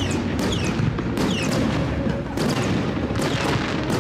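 Fireworks display: a rapid series of bangs and booms from bursting shells, over background music.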